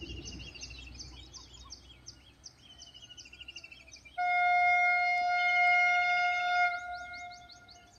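Train horn sounding one long steady blast about four seconds in, lasting about two and a half seconds before fading, from a train not yet in sight. Birds chirp repeatedly throughout.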